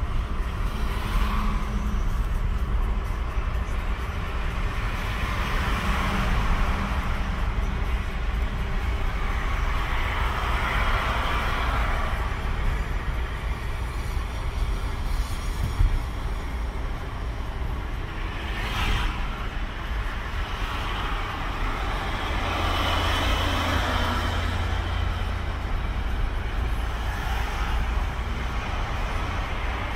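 Road and traffic noise heard from a moving car: a steady low rumble of engine and tyres, with louder swells every few seconds as the car and passing traffic move along.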